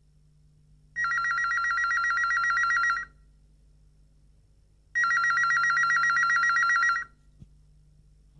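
Cordless home telephone ringing: two rings of about two seconds each, about two seconds apart, each a fast warbling trill.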